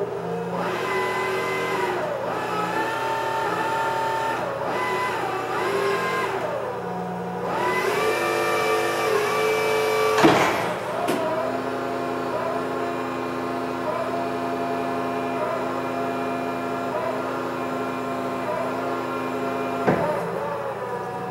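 Crown RR5020-45 36-volt electric reach truck's hydraulic pump motor whining as the fork carriage reaches out and pulls back in, its pitch stepping up and down as the controls are worked. A loud clunk about ten seconds in and a smaller knock near the end.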